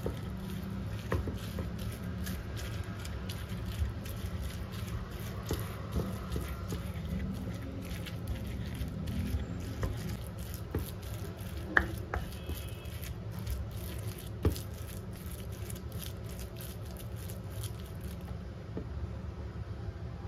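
Wooden spoon mashing fried tofu against a wooden bowl: soft squishing and scraping with frequent light taps of wood on wood, and two sharper knocks, one near the middle and one a couple of seconds later. A steady low hum runs underneath.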